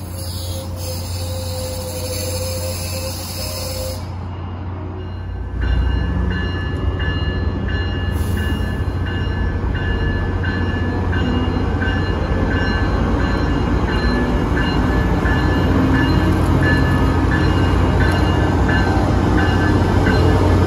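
Passenger rail cars roll past with a high hiss for the first few seconds. Then, from about five seconds in, a Tri-Rail Brookville BL36PH diesel locomotive approaches and passes: its engine gives a steady low drone that grows louder, and its bell rings in regular, evenly spaced strokes throughout.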